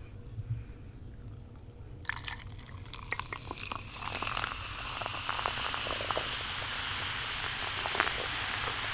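Grape cooler drink poured from a can into a glass, starting about two seconds in, then a steady fizzing hiss with small crackles as it fills the glass.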